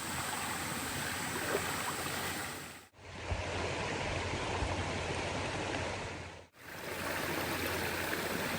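Steady rush of water spilling over a swimming pool's waterfalls, broken twice by brief drop-outs.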